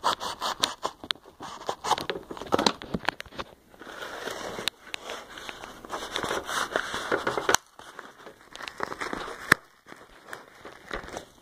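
A mail package being opened by hand: packaging crinkling and tearing, with sharp clicks and rubbing from fingers handling the cell phone close to its microphone. The tearing and rustling comes in two longer stretches, one in the middle and one later, between scattered clicks.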